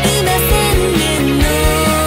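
Background music with a steady beat and sustained melody lines.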